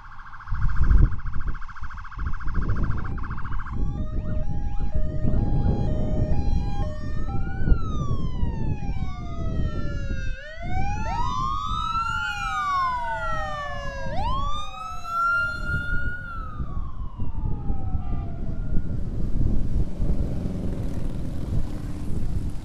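Police motorcycle sirens sounding over the rumble of motorcycle engines: first a fast-pulsing electronic tone, then stepping tones, then several wailing sirens rising and falling over one another. The sirens stop in the last few seconds, leaving the steady rumble of a line of motorcycles riding past.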